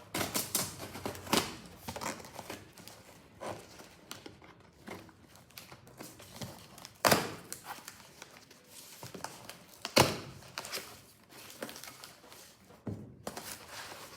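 A delivery packet being torn open and its packing handled: irregular crinkling, rustling and tearing, with two sharper, louder rips or knocks about seven and ten seconds in.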